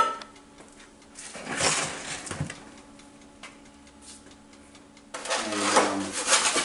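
Handling noises at a kitchen counter: a steel mixing bowl and a foam egg carton being moved and opened, in two short bouts of rustling and scraping about a second in and about five seconds in, over a faint steady hum.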